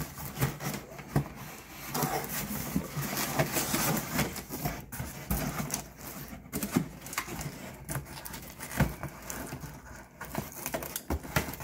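Cardboard packaging rustling and scraping as a plastic-wrapped RC truck is pulled out of its box, with irregular small knocks and rustles throughout.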